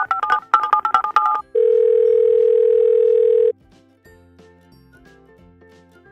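Telephone keypad tones, a quick run of two-pitch beeps as a number is dialed, then one long steady phone tone of about two seconds as the call goes through. Faint background music follows.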